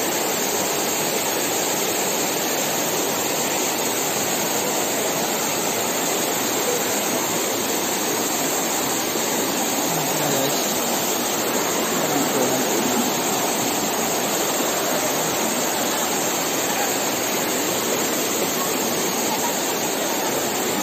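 Steady rushing of a stream cascading over rocks at a small waterfall, close by.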